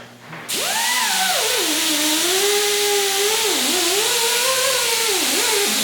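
Power drill spinning a brushing/polishing wheel against an aluminium intake manifold, starting about half a second in; the motor's whine sags and climbs again several times as the wheel is pressed into the metal, over a steady scouring hiss.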